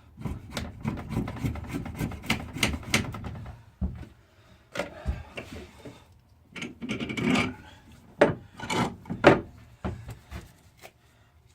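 A blade shaving and scraping birch wood: a quick run of rasping strokes for about four seconds, then separate longer strokes, the strongest three close together near the end.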